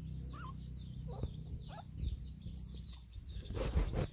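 Small animal calls: short high peeping chirps repeating several times a second, with a few squeaky whimpers among them. A louder crackling rustle comes about three and a half seconds in.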